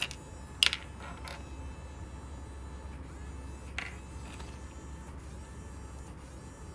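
Small toy-projector motor and plastic gear mechanism running, hunting for a limit switch that has been taken out, with a few sharp plastic clicks, the loudest about half a second in.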